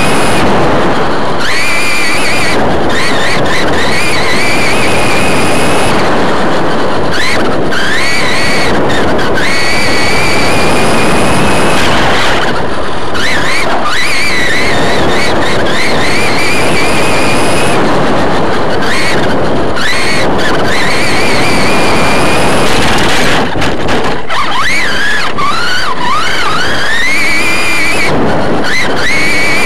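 Onboard sound of an electric RC short course truck racing: a high motor and drivetrain whine that drops away and climbs back up many times with the throttle. It rides over a loud, steady rushing noise from the tyres on dirt and wind on the onboard microphone.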